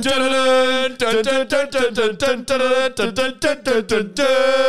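A voice singing an a cappella intro jingle for the podcast: a long held note, a quick run of short notes, then another long held note.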